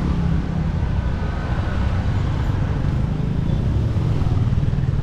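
A motor vehicle's engine running steadily amid road noise.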